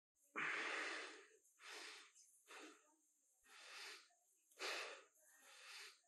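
A man breathing heavily, six loud uneven breaths in quick succession, the first the longest.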